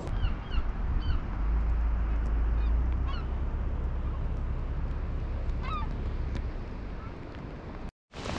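A flock of birds calling in short, sharp bouts over a steady low rumble of wind on the microphone.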